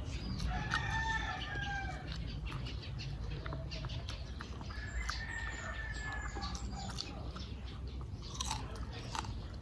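A rooster crowing twice in the background, each crow held for about a second and a half, over scattered clicks and crunches of eating.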